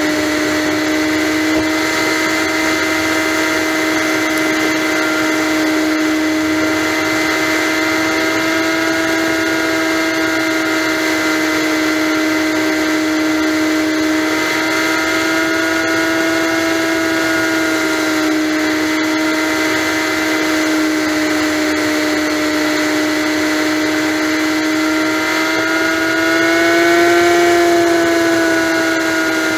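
Honda Magna motorcycle's V4 engine running steadily at highway cruising speed, heard from the handlebars as one steady droning tone over a rush of noise. Near the end the pitch rises a little and it grows briefly louder, then settles back.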